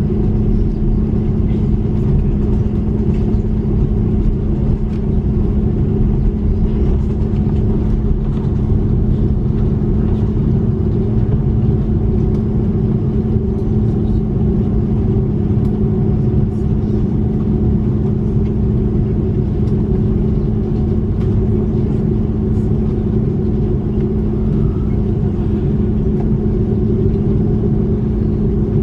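Steady drone of an Airbus A330-300 heard from inside the passenger cabin: engine and airflow noise with a constant low hum and no rise or fall.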